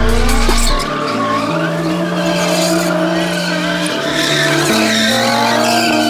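Car tires squealing in a long, wavering screech as the car spins donuts, with its engine running hard underneath.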